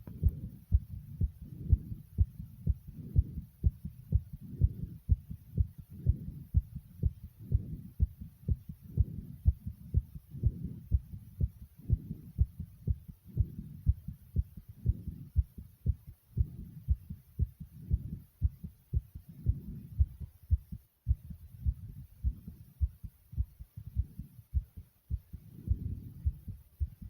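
Fast heartbeat: a rapid, even run of low thumps that keeps on without a break.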